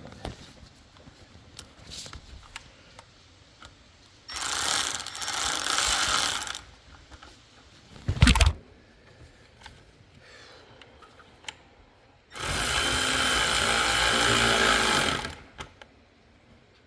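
A handheld power tool runs in two bursts, one of about two seconds and a longer one of about three seconds, with a sharp knock between them.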